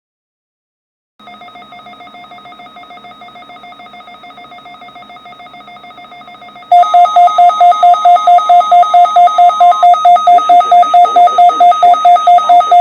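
Weather alert radio receiver's alarm going off, set off by a NOAA Weather Radio warning alarm test. It starts about a second in as a moderate warbling electronic tone. Partway through it turns much louder and beeps rapidly and evenly, with a fainter steady tone underneath for a few seconds.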